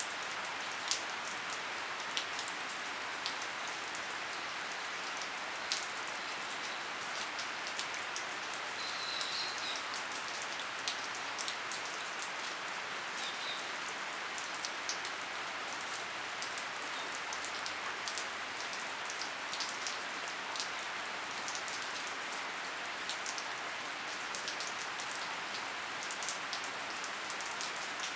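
Steady rain falling on a wooden deck: an even hiss with scattered sharp taps of single drops.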